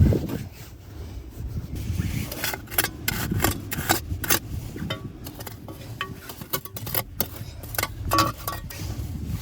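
An irregular series of short scraping and rubbing strokes over a low wind rumble, starting about two seconds in.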